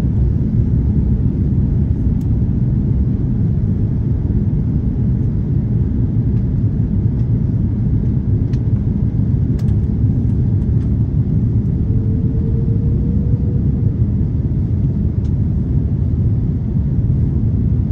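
Steady low rumble of airflow and engines heard inside the cabin of an Airbus A330-300 airliner in flight, on its approach to land.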